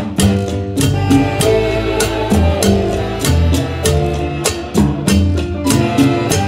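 Live big-band music heard from beside the drum kit: a steady beat of snare and cymbal strokes over a bass line and saxophones.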